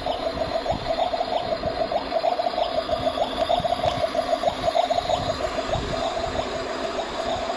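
Steady trickling, gurgling water sound with a constant wavering hum underneath.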